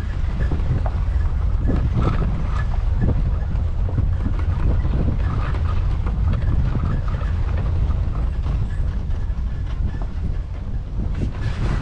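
Strong wind buffeting the microphone, a steady heavy low rumble with irregular light clatter through it.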